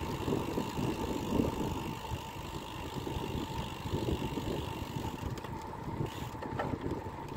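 Wind rushing over the microphone and tyre noise from a bicycle being ridden along a road, with a faint steady whine.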